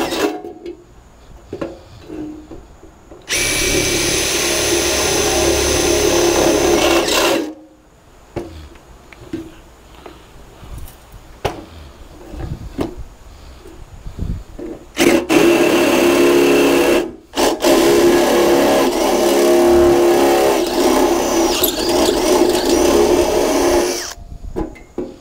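Makita 40-volt cordless drill with a step bit cutting a hole in a sheet-steel wiring trough: the motor runs steadily for about four seconds, then again from about fifteen seconds in for most of the rest, with a brief break. Quieter knocks and handling clatter of the tool on the steel box in between.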